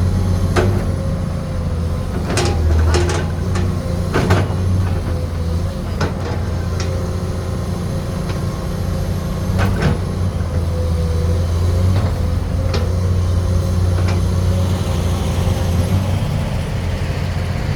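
Komatsu PC210 hydraulic excavator's diesel engine running steadily under digging work, with a faint steady whine above the engine drone. Sharp metallic knocks and clanks come at irregular intervals, several close together a few seconds in.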